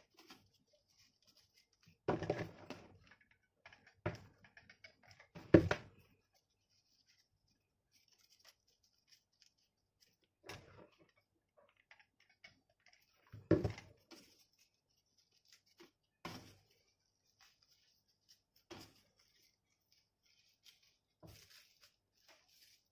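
Scattered handling knocks and rustles from a hot glue gun, foam flowers and a cardboard tube being moved and set down on a wooden table, a few seconds apart.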